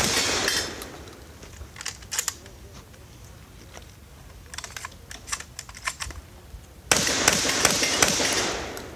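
Shotgun fire: a loud blast just before the start that dies away within the first second, then a series of sharp mechanical clicks as the gun is worked, then another loud blast about seven seconds in that rings on for more than a second.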